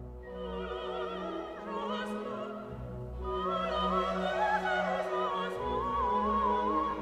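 Background music: a classical operatic voice singing held notes with wide vibrato over orchestral accompaniment, swelling louder partway through.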